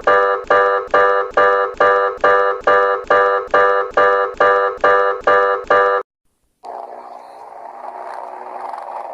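Emergency alert alarm tone: a chime-like electronic chord pulsed a little over twice a second, each pulse fading away, which stops about six seconds in. After a short silence a hissy, noisier alert recording with a few low steady tones begins.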